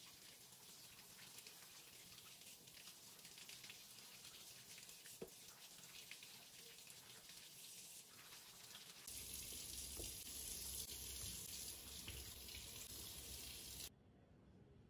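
Kitchen tap running into a sink as tomatoes are rinsed under the stream: a steady rush of water that grows louder and fuller about nine seconds in, then cuts off suddenly near the end.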